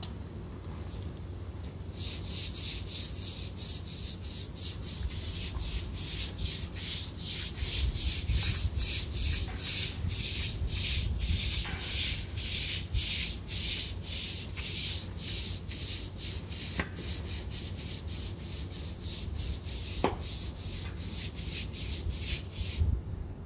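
Long-handled scrub brush scrubbing a wet, soapy concrete kennel floor in even back-and-forth strokes, about two a second, starting about two seconds in.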